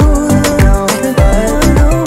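Background music with a steady beat and deep bass kick drum.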